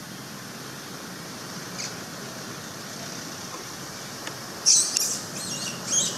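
Young long-tailed macaque giving a run of shrill, pitch-bending squeals, starting about three-quarters of the way through, the first the loudest.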